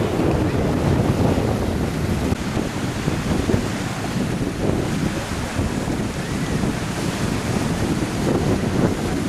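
Wind buffeting the microphone over gentle surf washing onto a sandy beach, a steady, fluttering rush.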